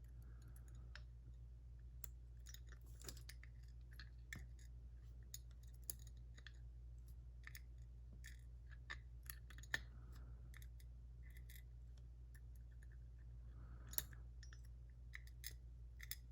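Faint, scattered small clicks and taps of little metal lock parts (pins, springs, plug) being handled and jiggled, over a low steady hum.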